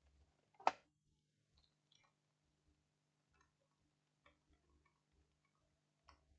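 Faint clicks and ticks of a laptop being handled as its battery is taken out, with one sharper click under a second in, over a faint low steady hum.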